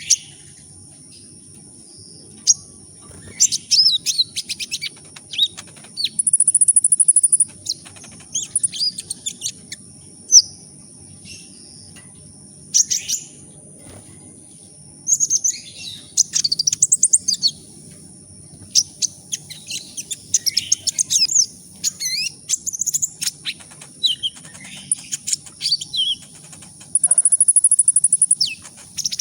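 A kolibri ninja sunbird singing: bursts of quick, very high-pitched twittering and fast trills, broken by short pauses, over a faint steady high tone.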